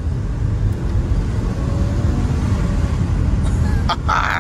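Cabin sound of a Volkswagen accelerating in sport mode: a steady low engine and road rumble with a faint rising engine note, and a short, brighter burst of sound near the end.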